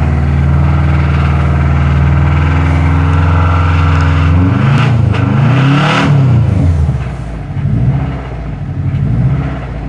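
A 2012 Subaru WRX's EJ255 turbocharged 2.5-litre flat-four running with rod knock. It runs steadily, is revved up and down a few times about halfway through, then drops back to a lower, quieter idle.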